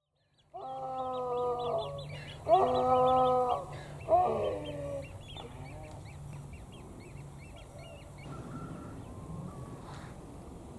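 Three long, loud calls from a large animal, each about a second, the last one shortest, with small birds chirping behind them. After about five seconds only the birds and a low steady hum remain.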